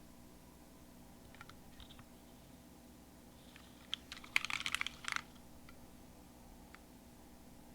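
Mechanical keyboard with Hyperglide switches on a polycarbonate plate: a few scattered key clicks, then a short burst of rapid keystrokes a little past the middle.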